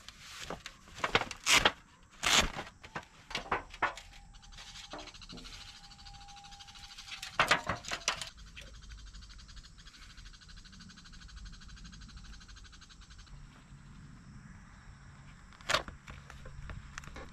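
Metal parts of a camp fire stand clinking and knocking together as its top plate is swapped: a series of sharp clanks, with a cluster of louder ones about halfway through and a brief faint ringing tone in between.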